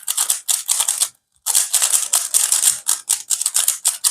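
Plastic Rubik's cube being scrambled by hand: fast, continuous clicking and clacking of the layers turning, with a brief pause a little after a second in.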